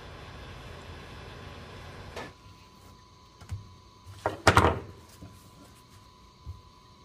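A steady hiss cuts off about two seconds in. Then come a few knocks and one loud thump as a mandarin fish fillet is handled on a wooden cutting board.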